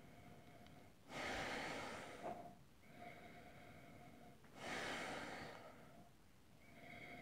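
A man sniffing whisky from a tasting glass: two long inhalations through the nose, about three and a half seconds apart, each rising quickly and then fading.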